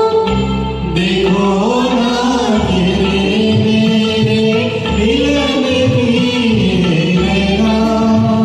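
Hindi film song performed live: a voice sings a gliding, ornamented melody over a steady instrumental backing track.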